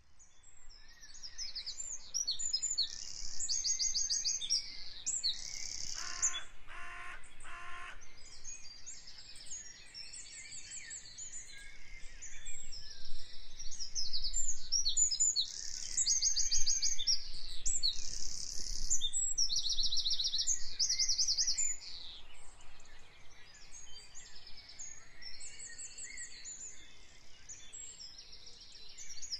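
A chorus of many small songbirds chirping and trilling densely and continuously. A lower, buzzier call repeats three times about six seconds in.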